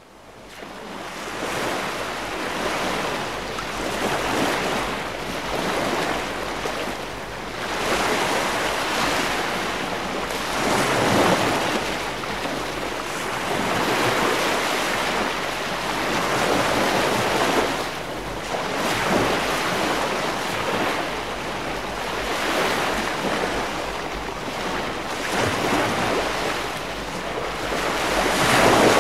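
Ocean surf: waves breaking and washing ashore, the rush swelling and ebbing every three to four seconds, fading in at the start.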